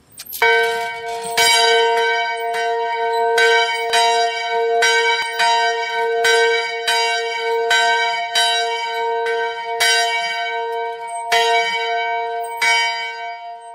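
A church bell struck over and over on one pitch, about two strokes a second, the strokes spacing out and dying away near the end.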